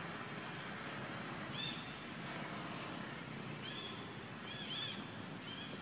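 Short, high-pitched animal calls, four in all, each rising and falling in pitch, a second or two apart, over a steady background hiss.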